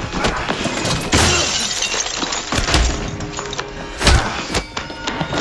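Dubbed fight sound effects over dramatic music: a series of heavy hits and thuds with glass shattering, the loudest hit about four seconds in.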